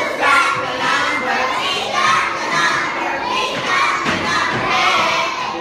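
A crowd of young children shouting and cheering together, many voices overlapping throughout.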